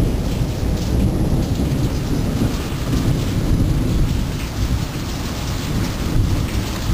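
Hail falling steadily on a wooden deck and gravel, a continuous hiss, over a deep, continuous rumble of thunder.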